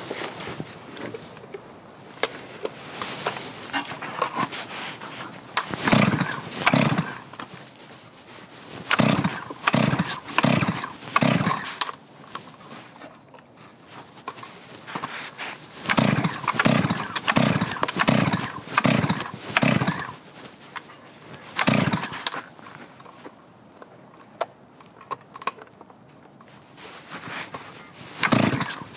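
Two-stroke chainsaw being pull-started. There are several rounds of quick starter-cord pulls, about half a second apart, in groups of two to seven, and the engine does not catch and run.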